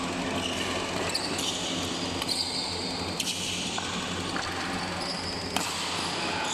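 Badminton doubles rally: a few sharp racket hits on the shuttlecock and short high squeaks of court shoes on the floor, over the background noise of a busy sports hall.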